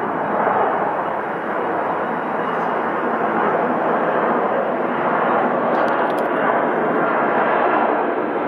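Loud, steady jet noise from a Boeing KC-767 tanker's twin turbofan engines as it flies low overhead on approach, landing gear down.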